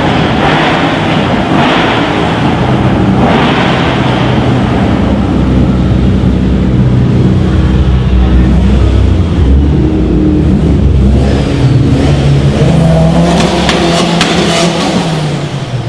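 Loud modified car exhaust: a deep engine rumble with revving surges in the first few seconds, then a burst of sharp cracks and a rising-then-falling whine near the end.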